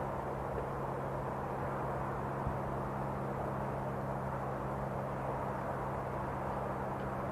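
Freight train running away along the line: a steady low drone from its diesel locomotive under the even rumble of the wagons rolling on the rails.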